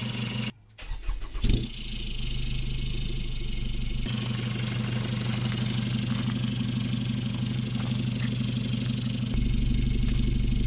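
A tuned Chevy Colorado's 2.8-litre Duramax four-cylinder turbo-diesel cranks and catches about a second in, then settles into a steady idle through a straight-piped downpipe exhaust. The idle grows deeper and louder near the end.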